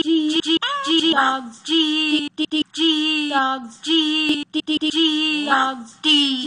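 A child singing through autotune in short phrases: each note is held dead flat, then the voice snaps to the next note.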